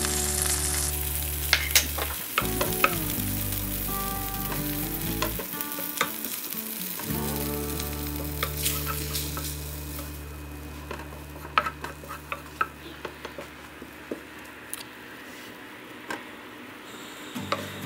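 Flour frying in melted butter in a nonstick pan, sizzling as a wooden spatula scrapes and taps through it, stirring it into a crumbly roux. The sizzle dies down about halfway through, leaving mostly scattered ticks and scrapes of the spatula on the pan.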